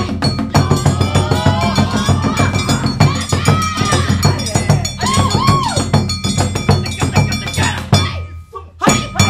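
Awa Odori festival music: taiko drums and a kane hand gong struck in a fast, dense rhythm, with a gliding melody above them. About eight seconds in the music breaks off, leaving a few last strikes.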